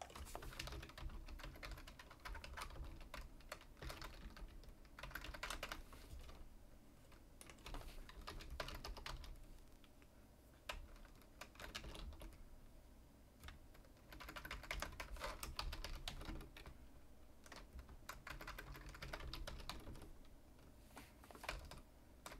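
Computer keyboard typing, faint, in repeated short bursts of keystrokes with pauses in between.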